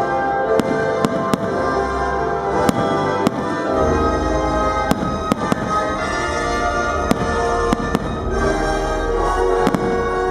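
Aerial firework shells bursting, a dozen or so sharp bangs at irregular intervals, over loud music with sustained chords that accompanies the display.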